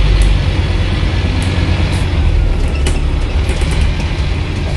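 Scania N230UB bus's diesel engine running at low speed, a steady low rumble heard from inside the passenger saloon, with a few faint ticks and rattles.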